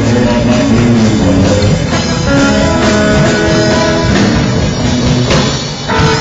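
A live rock band playing an instrumental passage: guitar notes over a steady drum beat.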